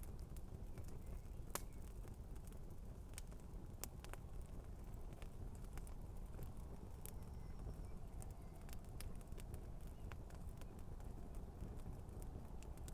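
Campfire crackling, with irregular sharp pops and snaps over a steady low rumble.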